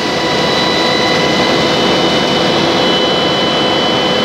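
2012 Pierce fire engine's engine and fire pump running at pumping speed, pushing water through the discharges: a loud, steady rush with a constant whine over it. It grows a little louder in the first second as a discharge line is closed off.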